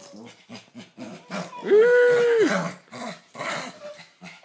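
Small dog play-growling in short, low grunts while mouthing a hand, with one loud, drawn-out whine about two seconds in that rises, holds and falls away.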